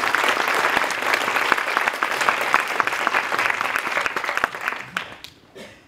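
Audience applauding: dense clapping that thins out and dies away about five seconds in.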